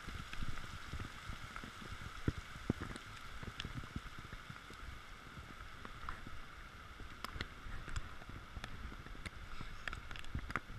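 Heavy rain falling on a pond and the bankside grass, a steady hiss, with scattered sharp taps of drops striking the camera.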